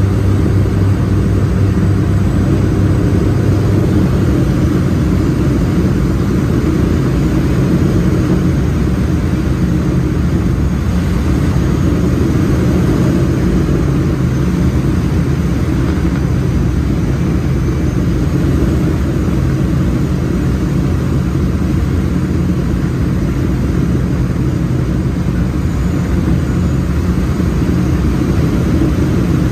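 Cabin drone of a de Havilland Canada DHC-6 Twin Otter's two Pratt & Whitney PT6A turboprop engines and propellers on approach, heard from inside the cabin beside the wing. A steady, loud hum with layered low propeller tones, its deepest note easing about four seconds in.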